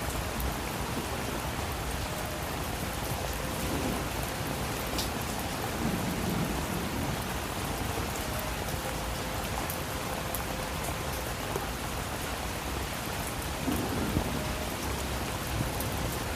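Steady rain falling, an even hiss of drops, with low rumbles of thunder swelling briefly a couple of times.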